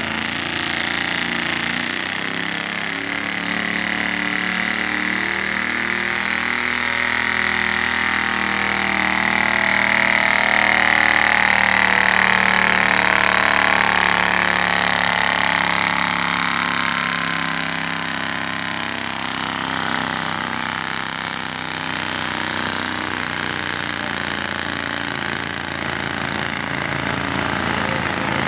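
Riding garden tractor's engine running hard under load while it drags a weight-transfer pulling sled. It grows louder toward the middle, then eases back to a steady level.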